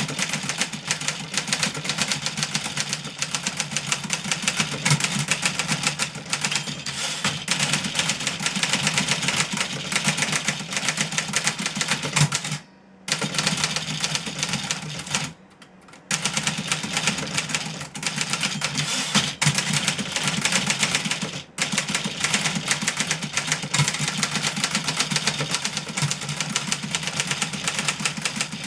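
1963 Remington Model 11 portable typewriter being typed on at speed: a dense, continuous stream of key and typebar strikes, broken by two short pauses around 13 and 15 seconds in.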